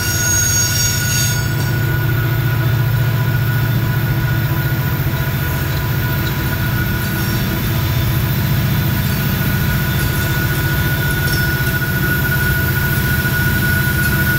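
Loaded coal train rolling across a steel trestle: a steady low rumble from the cars and diesel locomotives, with a steady high whine over it. A high wheel squeal fades out about a second in.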